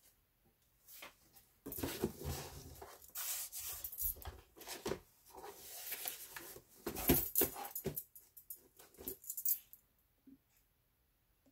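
Cardboard box and paper being handled and turned over: irregular rustling and scraping of cardboard with small knocks, starting about two seconds in and stopping near the end.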